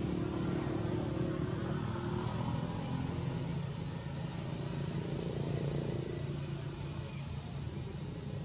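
Steady low rumble of a running engine.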